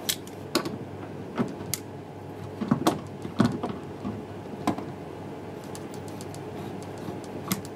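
Mole grips (locking pliers) clicking and knocking against the plastic fixing peg of a washing machine drum's shock absorber as they are worked onto it: a string of sharp, irregular clicks, several close together about three seconds in.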